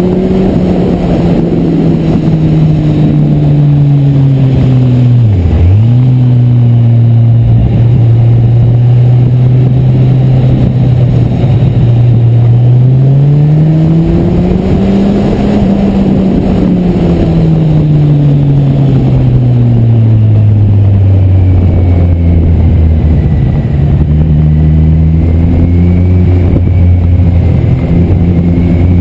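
Kawasaki Z1000SX inline-four engine under way, with a rush of wind and road noise. The engine note dips sharply and settles lower about five seconds in, climbs as the bike accelerates around the middle, then falls slowly as it slows, lowest near the end.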